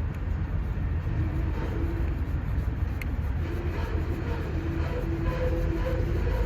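Steady low rumble of a running engine, with a faint drone that comes and goes and a single light click about three seconds in.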